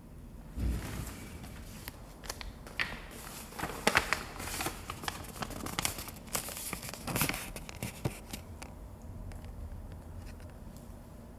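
Irregular rustling and sharp clicks of things being handled, loudest from about half a second to eight seconds in, then dying down.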